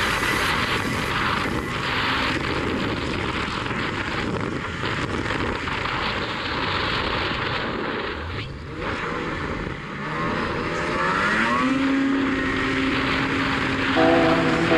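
Ski-Doo XRS 800 snowmobile's two-stroke engine running at speed under the rider, with track and wind noise. It eases off briefly about eight and ten seconds in, then climbs in pitch as it accelerates about eleven seconds in.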